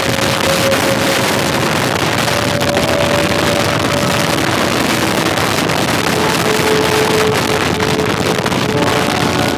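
Harley-Davidson motorcycle engine running at road speed under heavy wind noise on the microphone, its engine note shifting slightly now and then.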